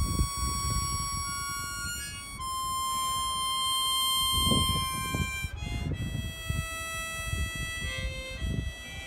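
Harmonica playing a slow melody of long held notes that change pitch every second or two, with a low rumbling noise underneath.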